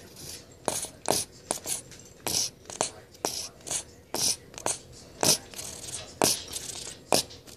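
Squeeze bottle of peanut butter sputtering out its last squirts: an irregular run of about fifteen short, sharp spurts of air and paste, a few of them loud.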